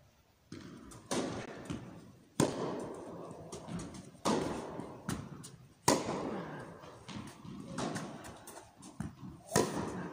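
Tennis rally in an indoor hall: rackets striking the ball and the ball bouncing on the court, a sharp crack about every one and a half to two seconds. Each hit rings on in the hall's echo, and the near player's strokes are the loudest.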